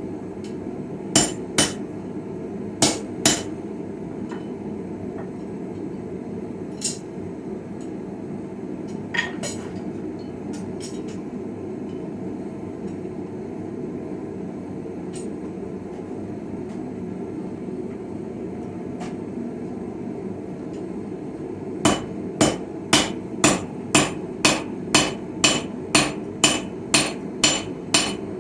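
Blacksmith's hammer striking a chisel blank on an anvil, with ringing metal blows. A few strikes come near the start and a few lighter taps in the middle, then steady hammering at about two blows a second begins near the end. A steady low rushing noise runs underneath.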